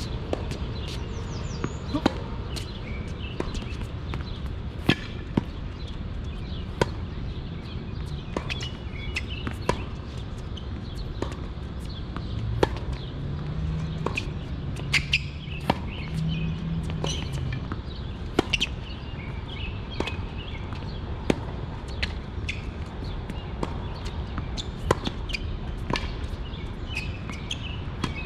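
Tennis balls being struck with rackets and bouncing on the court in a rally: sharp knocks every half second to a second and a half, with birds chirping faintly behind.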